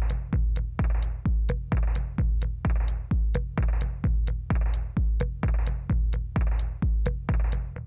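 Electronic background music with a drum-machine beat: a heavy kick drum a little more than twice a second, with crisp hi-hat ticks between the kicks.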